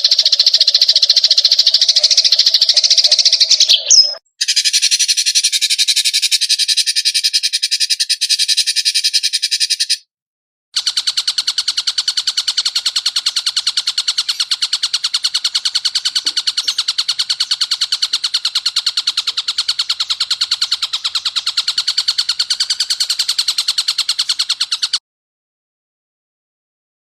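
Edited songbird training recording: three spliced clips of very fast, high-pitched trills, each a steady run of rapidly repeated notes, split by brief silent cuts. The sound stops about two seconds before the end.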